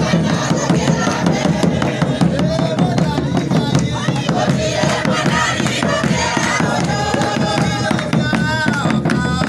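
A group of people singing together, with hand clapping and a hand-held hide drum keeping the beat.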